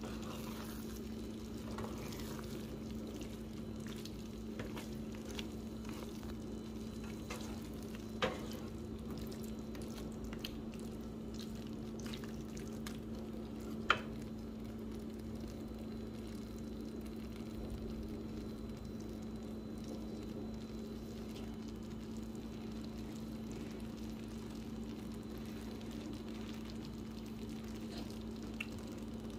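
Skillet of ground beef and egg noodles in a milky sauce sizzling and simmering while a spatula stirs through it, over a steady low hum. Two sharp clicks stand out, one about eight seconds in and a louder one about fourteen seconds in.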